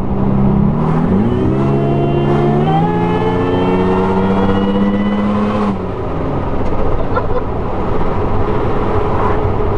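Supercharged 1GR-FE V6 of a Toyota Hilux pulling hard under acceleration, heard inside the cab over road noise: the engine note rises in pitch in two steps to about 4,000 rpm, holds, then drops out suddenly about six seconds in, leaving road rumble.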